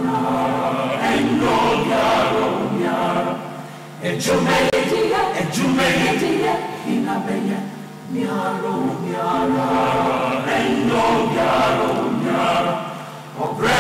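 Choir singing in three phrases, with brief dips between them.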